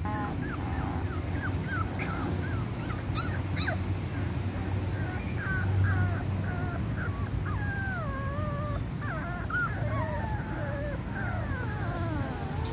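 Young puppies whimpering: a string of short, high-pitched whines one after another, with a few longer wavering cries in the second half. A steady low hum runs underneath.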